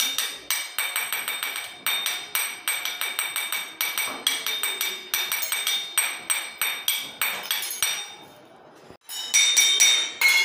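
Spoons tapping a row of stainless steel tumblers in a quick, steady rhythm of about four or five strikes a second, each strike ringing with a clear metallic pitch. A brief pause about eight seconds in, then louder strikes resume near the end.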